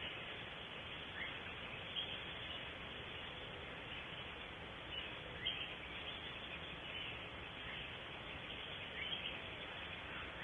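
Steady hiss of outdoor ambience with a few brief, falling bird chirps scattered through it, about four in all.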